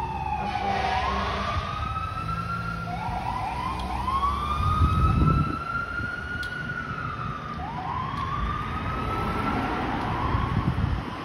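Fire engine siren wailing, sweeping slowly up in pitch, holding, then falling, several times over, with a few short quick rises in between, over low traffic rumble. A loud low rush, like wind on the microphone, comes about halfway through.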